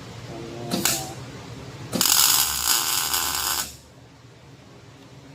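A short knock, then a loud, rapid mechanical rattle lasting about a second and a half that stops abruptly.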